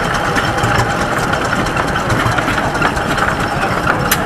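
Shingle planer (pärehöylä) running steadily: a continuous mechanical din with many small rapid clicks.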